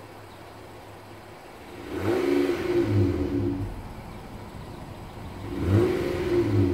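2018 Honda Odyssey's 3.5-litre V6 idling, then revved twice: about two seconds in the pitch rises, holds for over a second and drops back to idle, and near the end it revs up again.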